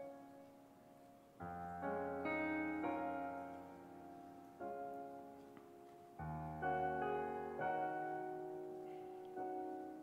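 Piano music: slow chords struck one after another, each ringing out and fading.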